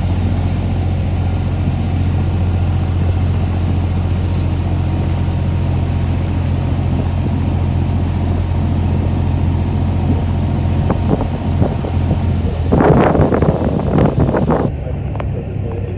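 Toy train's engine running at a steady, even pitch. From about 12 seconds in, people's voices come in over it, and the engine fades somewhat near the end.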